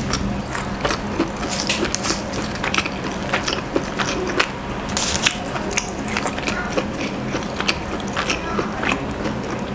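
Close-miked chewing of a pastrami sandwich: a quick, irregular run of sharp wet mouth clicks and smacks, several a second. A low steady hum lies underneath.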